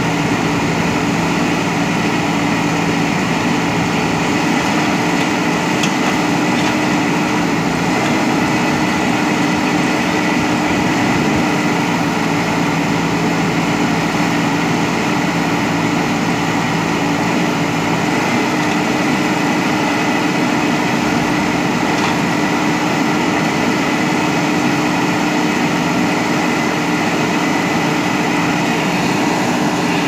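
JCB backhoe loader's diesel engine running steadily, a continuous hum with no let-up.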